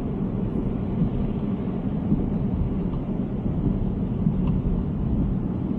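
Steady low rumble of road and tyre noise from a Tesla Cybertruck driving on a wet road.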